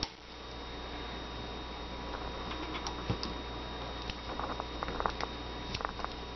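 Faint small clicks and scrapes of steel pistol parts being handled as the recoil spring arm is worked over its stud on a Beretta 21A Bobcat frame, most of them about four to five seconds in, over a steady background hum.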